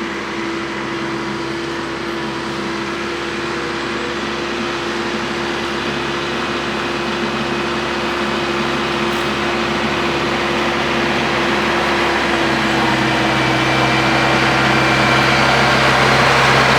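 An engine running steadily, slowly growing louder, with a slight shift in its note about twelve seconds in.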